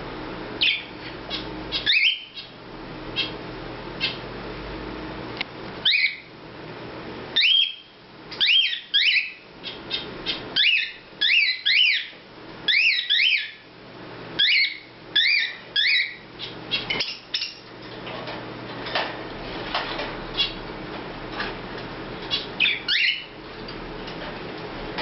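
Cockatiel chirping: short, sharp calls that glide up and down in pitch. A few come singly, then several quick runs of chirps follow, with a last short burst near the end.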